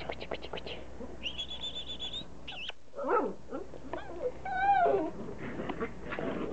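Border collie puppies whining and yelping as they play: a few quick clicks at the start, then a high wavering squeal, short falling yelps and a longer arching whine about two-thirds of the way through.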